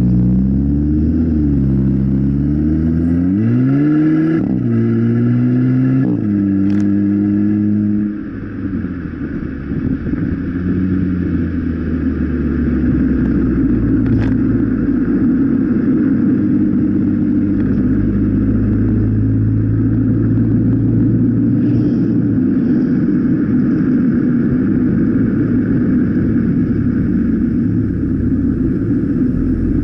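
Volkswagen Golf Mk7 1.4 TSI turbocharged four-cylinder engine heard at the tailpipe, its rear muffler removed and a 3-inch GTI-style Y-pipe fitted: revved up and down a few times, held briefly, then dropping back about eight seconds in to a steady deep idle.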